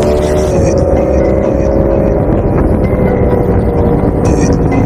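Yamaha R1's inline-four engine under way: the revs drop sharply about half a second in as the throttle is closed or a gear changes, then wind slowly down, with a slight pickup near the end. A low rumble of wind runs underneath.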